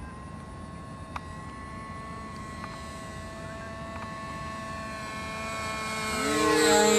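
Model airplane's two-stroke glow engine (OS 25FX on a Sonic High Wing 25) droning steadily in flight, growing louder as the plane comes in, with its pitch bending as it passes close near the end.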